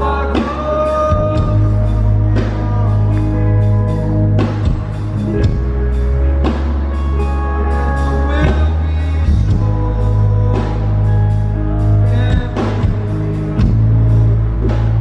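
Live rock band playing loud, with heavy sustained bass, frequent drum hits, guitar and singing.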